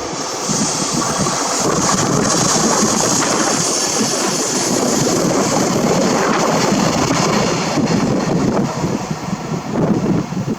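An EF65 electric locomotive and four Chiki 5200 flat wagons loaded with rails running past, with a steady rumble and hiss of wheels on rail that swells about half a second in. Wind buffets the microphone in gusts near the end.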